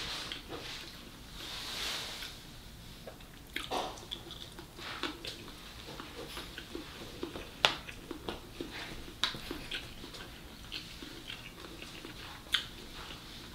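Close-miked eating: a plastic spoon scraping and scooping fried rice in a plastic takeout tray, with chewing and mouth sounds and scattered sharp clicks, the loudest about eight seconds in and near the end.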